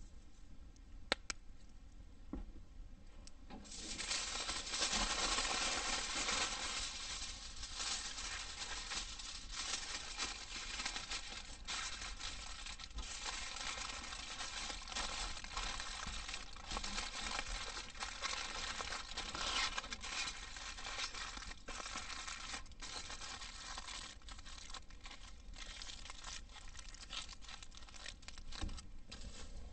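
Aluminium foil folded and crumpled by hand into a packet, a dense crinkling that starts about four seconds in and is loudest in its first few seconds. A few sharp clicks come before it.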